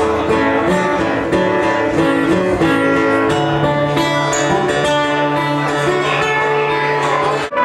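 Acoustic guitar played live, a run of changing picked and strummed notes that cuts off abruptly near the end.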